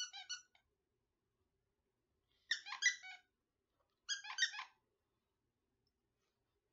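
A plush skunk dog toy squeaking as a Redbone Coonhound puppy chews and shakes it: three short bursts of rapid high-pitched squeaks, about two seconds apart.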